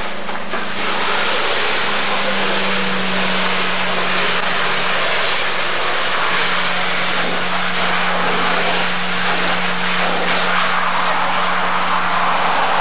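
A fire engine's motor running steadily to drive its pump: a constant low drone with a broad rushing noise over it. The drone's pitch shifts slightly about two seconds in and again around six seconds.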